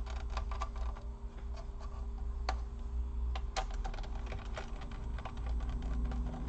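Irregular small clicks and taps of a screwdriver and loose screws against the plastic laptop casing while screws are taken out, over a steady low hum.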